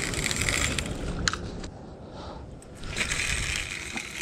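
Jacket fabric rustling against a body-worn camera microphone while an angler casts a spinning rod, over a low rumble of wind on the microphone. A sharp click sounds about a second in, and the rustling stops for about a second midway.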